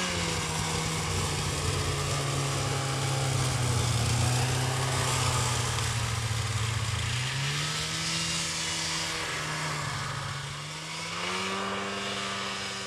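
Snowmobile engine running while pulling a loaded sled over snow, its pitch steady and low at first, then rising about seven seconds in and again a few seconds later.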